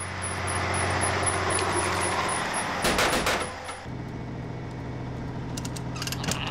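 Cartoon sound effect of a tracked tunnel-drilling vehicle running: a steady low engine hum under a grinding hiss, with a louder rush about three seconds in. Just before four seconds in it changes abruptly to a steadier, slightly higher engine hum, as heard from inside the cab.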